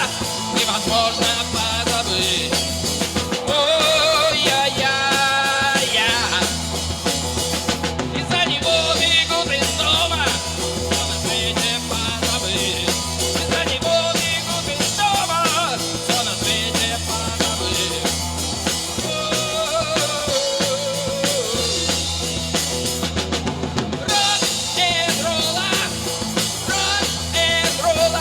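Live rock-and-roll band playing a song, with a drum kit keeping a steady beat under bass and a wavering melody line.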